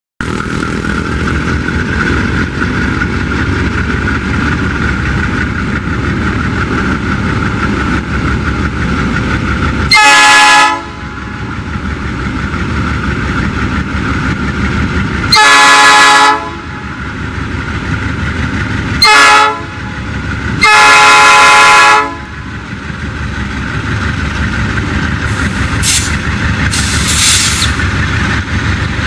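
GE C30-7 diesel locomotives' V16 engines rumbling steadily as the lashup passes close by. The lead unit sounds its air horn in four blasts, the third short and the last the longest: the long-long-short-long level-crossing signal.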